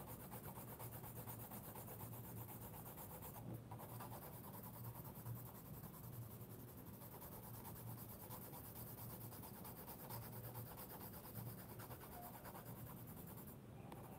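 Faint, rapid scratching of a cheap green colored pencil shading back and forth on thick, textured sketchbook paper as it lays down a layer of color.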